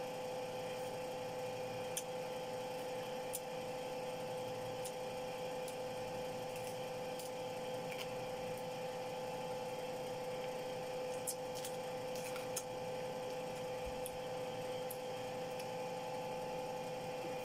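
A steady mechanical hum holding two even tones, with a few faint short clicks here and there.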